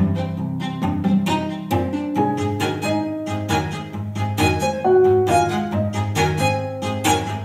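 Background music of bowed strings, cello and violin, with plucked notes.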